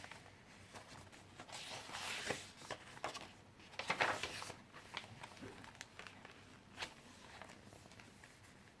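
Pages of a handmade paper junk journal being turned and handled: irregular paper rustles and swishes with small taps, the loudest about two and four seconds in.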